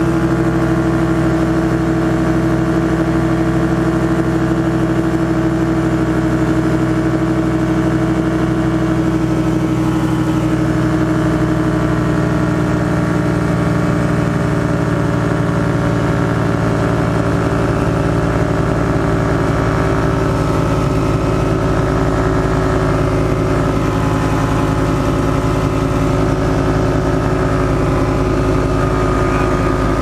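Engine and propeller of a Challenger ultralight aircraft running steadily in cruise flight, a constant drone whose pitch sags slightly over the first ten seconds or so.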